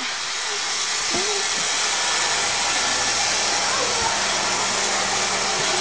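Roomba robot vacuum running with a steady whirring hum, with a couple of brief short cries over it, about a second in and around four seconds in.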